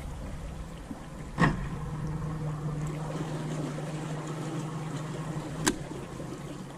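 A small electric motor on a bass boat switches on with a click about a second and a half in, hums steadily for about four seconds, and stops with another click.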